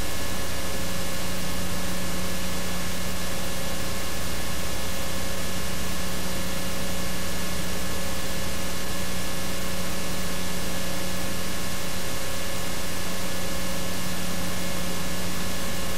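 Steady hiss with a constant electrical hum running under it, unchanging throughout; no other sounds stand out.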